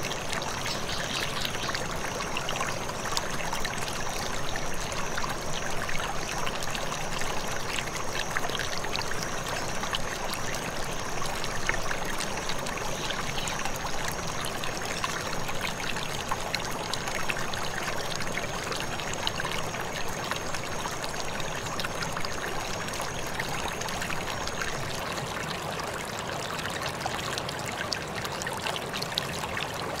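A shallow stream rushing and splashing over rocks in a riffle, a steady, unbroken water sound.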